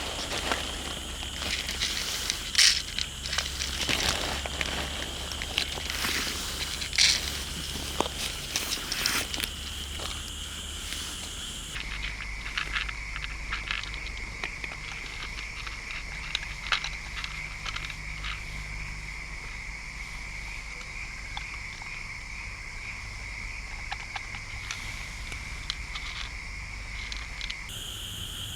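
Outdoor ambience with a steady, high-pitched chorus of calling frogs or insects, which shifts abruptly lower about twelve seconds in. Irregular crackling clicks run over it during roughly the first ten seconds.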